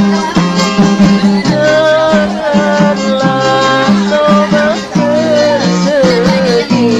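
Background music: a song with acoustic guitar and a sung melody over a steady repeating bass line.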